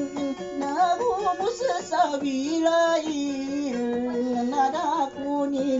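A man singing a song while strumming an acoustic guitar, holding long, wavering notes.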